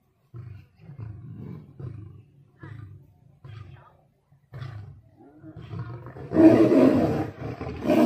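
Lion giving a run of short, low grunts about once a second. About six seconds in, a much louder, rough snarling roar breaks out as the lion goes for the tiger, and it carries on to the end.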